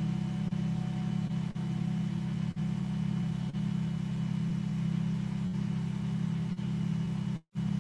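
A steady low hum with a few faint higher tones held underneath, broken by brief dropouts about once a second and a short full cut-out near the end.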